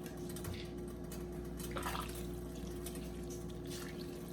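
Liquid splashing and dripping in a pot of simmering soup, over a steady hum.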